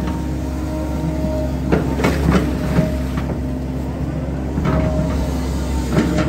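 Volvo hydraulic excavator working, a steady engine drone with a hydraulic whine, and a few knocks and scrapes as the bucket digs into wet soil and turf, about two seconds in and again near the end.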